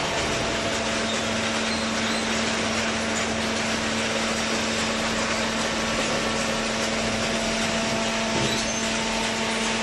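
Hydraulic paper baler running: a steady, dense machine noise with a constant low hum underneath.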